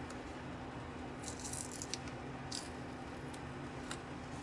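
Tape being peeled off a pistol slide freshly coated with Duracoat. There are faint crackling rustles about a second in, then a few light ticks, over a low steady hum.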